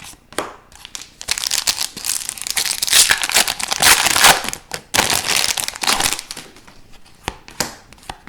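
Foil trading-card pack wrapper being torn open and crumpled, a dense crinkling that is loudest in the middle, followed by a few light clicks of cards being handled.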